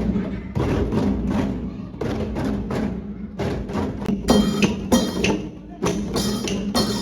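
Traditional Thai music played by an ensemble, with a regular beat of sharp percussive strikes over sustained pitched instruments; bright ringing strikes join in the second half.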